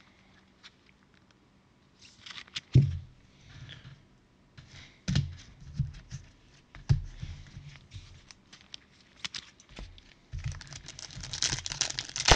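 Hands handling sealed trading-card packs on a table: scattered knocks, taps and rustles. Near the end a foil card pack crinkles steadily as it is gripped and torn open.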